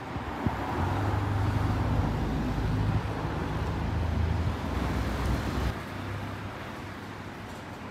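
Motor vehicle rumble in street traffic, stopping abruptly about six seconds in and leaving quieter street noise.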